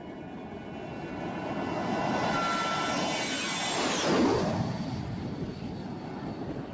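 Twin-engine jet airliner passing low overhead: engine noise builds to a peak about four seconds in, then fades a little. At the peak a high whine drops in pitch.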